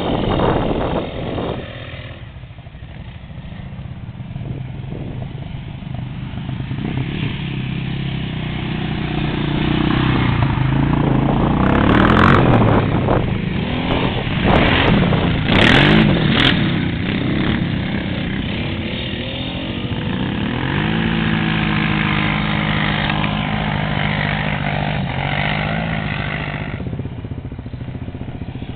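ATV engines: a quad revving as it climbs a steep dirt hill, then louder with rising and falling revs as a quad runs close by about halfway through, with a few sharp clanks. Later a nearer engine holds a steady note for several seconds before its pitch drops.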